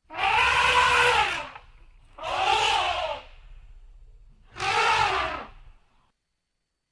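Elephant calls used as a creature sound effect: three rough calls in a row, each lasting about a second and rising then falling in pitch.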